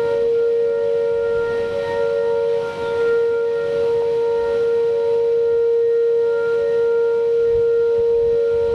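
Outdoor tornado warning sirens sounding a steady, held wail, two tones close together in pitch. They signal a tornado warning for the area.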